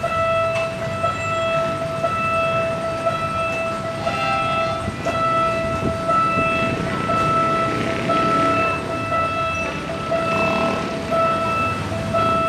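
A railway warning signal sounding one steady pitch almost without a break, with only brief dips, over a low background of city noise.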